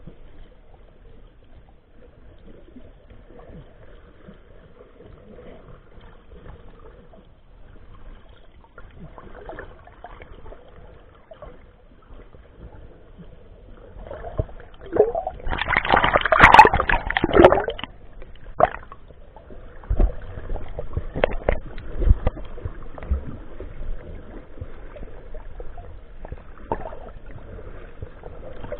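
Muffled water sloshing and gurgling picked up by a camera held underwater. A louder rush of water noise comes for a few seconds just past the middle, followed by a couple of sharp knocks.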